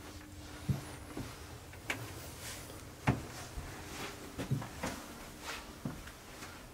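Footsteps thudding irregularly as people walk and climb stairs, with clothing and handheld-camera rustle between the steps. The heaviest thump comes about three seconds in.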